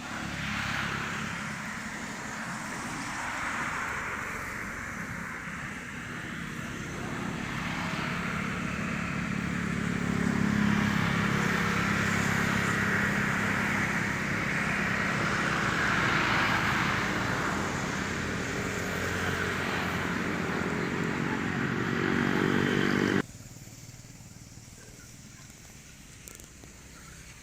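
A motor vehicle's engine running close by, swelling and easing in level, then cutting off abruptly a few seconds before the end.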